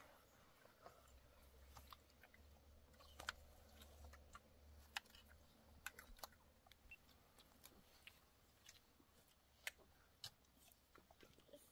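Near silence broken by faint, irregular clicks and small crackles, with a low hum in the first half.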